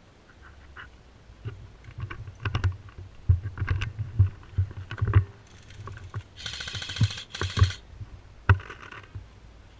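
Airsoft BB gun firing in rapid bursts, two short bursts close together just past the middle and a shorter one near the end, amid scattered knocks, clicks and low thuds from the player moving with their gear.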